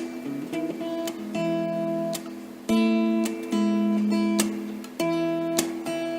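Acoustic guitar played in a plucked, claw-style pattern. Quick single notes come first, then full chords are struck about every two seconds and left to ring.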